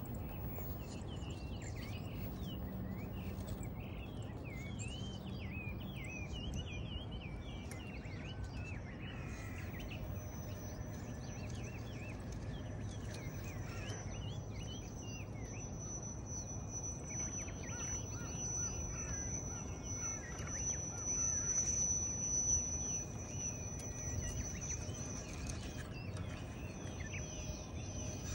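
Birds chirping over outdoor background noise. Through the second half a steady high whine joins in, strongest about three quarters of the way through.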